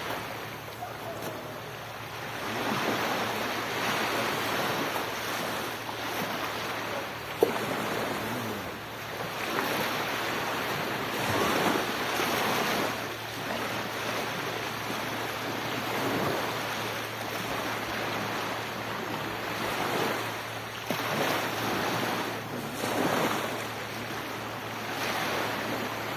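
Sea waves breaking and washing up the shore, the surf noise swelling and falling back every few seconds. A single sharp click sounds about seven seconds in.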